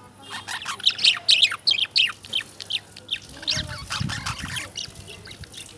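Caged lovebirds chirping: a rapid run of short, high chirps that thins out after about three seconds, with a low rumble under the chirps around the middle.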